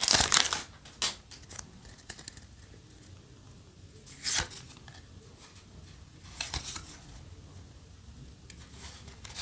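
Foil booster-pack wrapper crinkling as the trading cards are pulled out, then a few short, sharp swishes of cards being slid one behind another while flipping through the pack.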